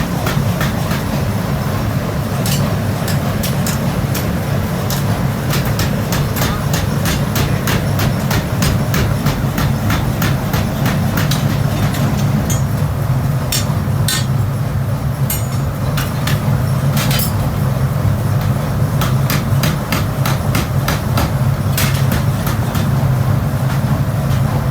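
Workshop machinery running with a steady low rumble, with many irregular metal clicks and knocks over it, thicker in the first half and sparser later.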